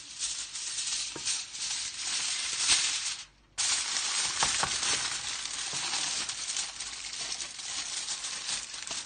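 Aluminium foil crinkling and rustling as hands fold and handle it, a dense crackle broken off once by a brief gap.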